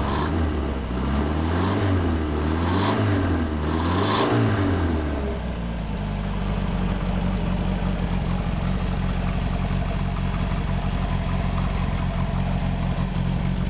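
V8 engine on a test run, revved up and down a few times, then settling about five seconds in to a steady idle.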